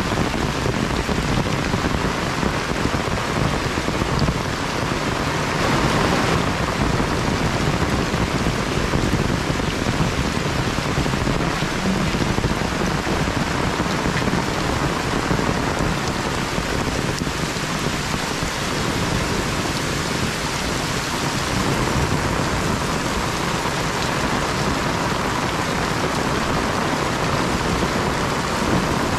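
Heavy rain falling steadily: a dense, even hiss of rain on surfaces.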